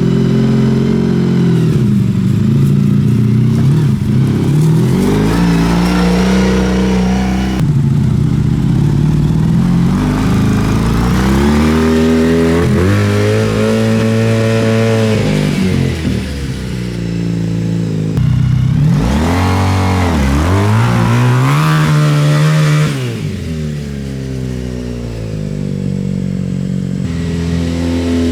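Honda VF1000 V4 motorcycle engine powering a dune buggy under way, revving up and dropping back several times as it is driven. It is running with freshly fitted clutch pads, now gripping rather than slipping under throttle.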